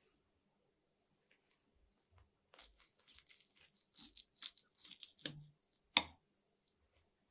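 Table knife cutting through a tomato-stewed hamburger steak: a run of short scratchy, crackling sawing sounds starting about two and a half seconds in, then one sharp clink near the end as the metal knife meets the ceramic bowl.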